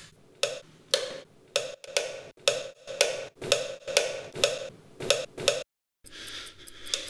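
Sharp, hollow ticking, about two to three strikes a second, like a wood block keeping time. It cuts off abruptly near the end into a moment of dead silence.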